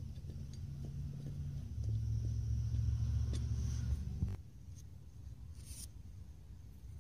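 Low steady mechanical rumble, louder for a couple of seconds, that cuts off suddenly about four seconds in, with a few faint light clicks over it.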